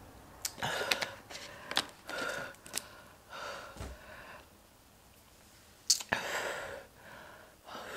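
A woman breathing out in loud, breathy hisses and gasps, several in a row with short gaps, as her mouth burns from very hot chicken wings. A few sharp clicks come between the breaths, the loudest about six seconds in.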